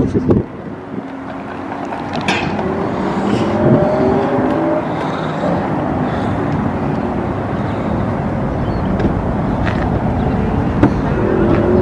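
Steady street traffic noise from cars driving along the road, with an engine rising in pitch a few seconds in.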